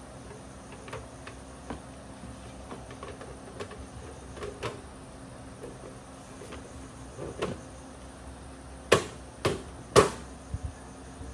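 Sheet-metal side panel of a PC tower case being fitted and slid into place: light scrapes and small clicks, then three sharp knocks near the end as the panel is pressed home against the case.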